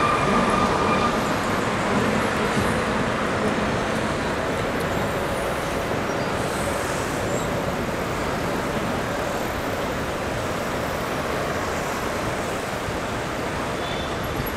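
Steady rolling noise of a Paris Metro MF 67 train crossing a steel viaduct, blended with road traffic noise and slowly fading. A high steady whine stops about a second in.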